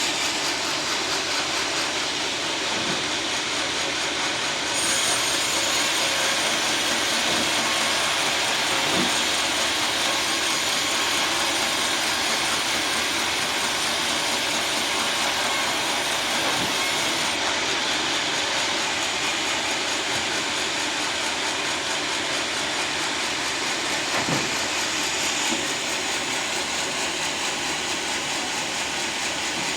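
Sawmill running steadily while sawing a teak log. From about five seconds in until about seventeen seconds it is louder and hissier, then it settles back to a steadier drone.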